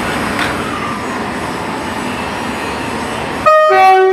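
Steady rumble of diesel multiple units idling, then near the end a loud two-tone train horn: a short higher note dropping to a longer lower one.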